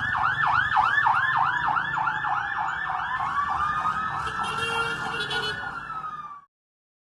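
Emergency vehicle sirens: one fast yelping siren cycling up and down about three times a second, fading, while a second, slower siren wails and glides in pitch beneath it. The sound cuts off suddenly near the end.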